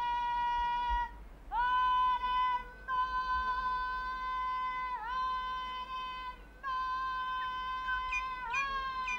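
A Māori woman's karanga, the high ceremonial call of welcome onto a marae: four long held notes with short breaks between them. Each note slides up into pitch, one dips in the middle, and the last one falls away.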